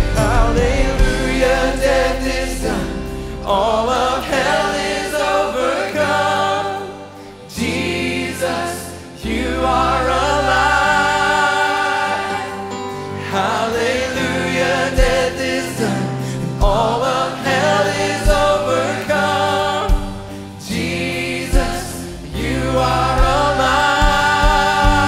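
A live worship song: a woman sings the lead, backed by a choir, over a band of piano, guitars, bass and drums, with short pauses between sung lines.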